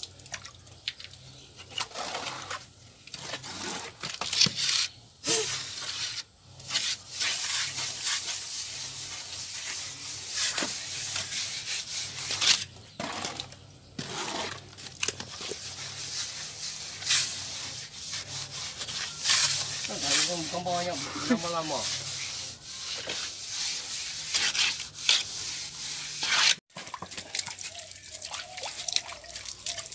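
Plastering tool scraping and rubbing over a cement-plastered wall in repeated, uneven strokes.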